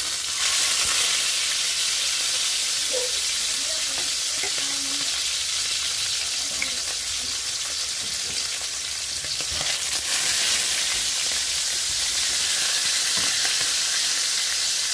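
Fish frying in hot oil in a pan: a steady, loud sizzle that starts abruptly as the fish goes into the oil.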